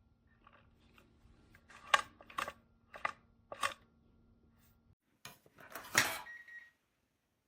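Four sharp metallic clicks and knocks of door lock hardware being handled, then a louder clatter about six seconds in.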